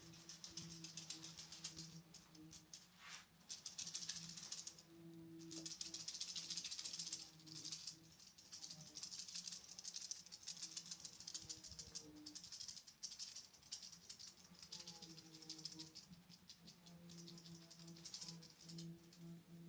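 Roomba robot vacuums running over a confetti-covered floor: a steady motor hum under a dense, fast rattle of confetti being swept up by the brushes, swelling and fading as the robots move.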